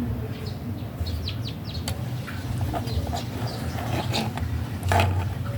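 Chickens clucking and small birds chirping in short scattered calls, over a steady low hum.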